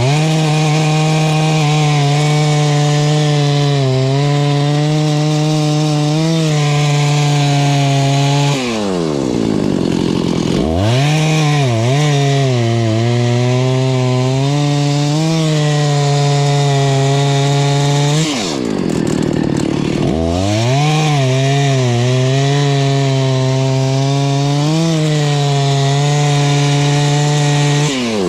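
Rebuilt Husqvarna 288XP two-stroke chainsaw making three long cuts through wood at full throttle. The engine note holds steady under load in each cut and swings sharply as the bar comes free between cuts.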